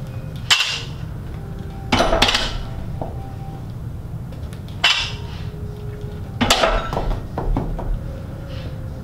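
Loaded barbell clanking during back squats: sharp metallic clinks and rattles from the weight plates shifting on the bar, four times a couple of seconds apart, over a steady low hum.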